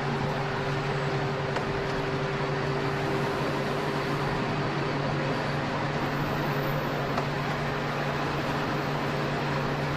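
Electric train running steadily along the line, heard from the front: an even rumble of wheels on rail with a constant low hum.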